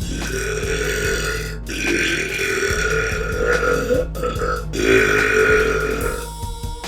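A girl burping loudly: about three long, drawn-out burps one after another.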